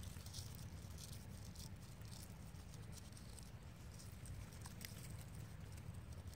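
Faint, irregular crackling and rustling of dry leaf litter as small macaques move about on it, over a steady low rumble.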